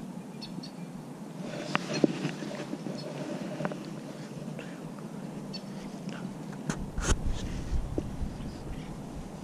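Quiet outdoor background with a few light clicks and knocks of handling, as the caught bass is picked up off the wooden dock and the camera and phone are handled. About two-thirds of the way through, a low rumble comes in with a couple of sharper knocks.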